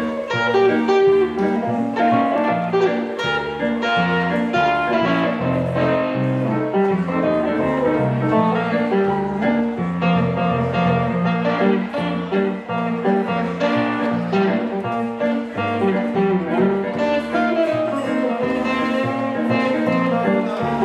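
Live blues played on a hollow-body electric guitar and an electric keyboard. The instrumental passage runs continuously, with a line of low bass notes underneath.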